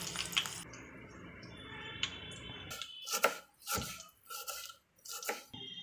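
Tempering of mustard seeds, dal, dried red chillies and curry leaves sizzling in hot oil in a pan, cutting off within the first second. From about three seconds in, a knife chops red onion on a wooden board: about half a dozen sharp chops, roughly two a second.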